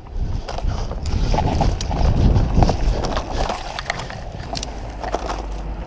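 Footsteps and rustling through undergrowth, with irregular crackles of leaves and twigs over a heavy rumble of movement on the camera microphone, loudest around the middle.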